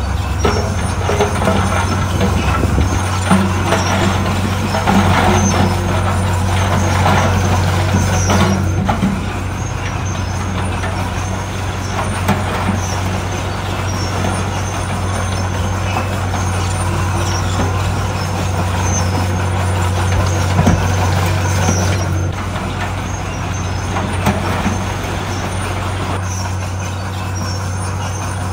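Heavy diesel earthmoving machinery running steadily with a constant low engine drone, with irregular clattering over the first nine seconds or so.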